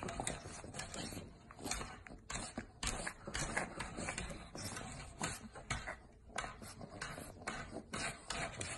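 A pug's paws scraping and tapping on a wooden tabletop, faint and irregular.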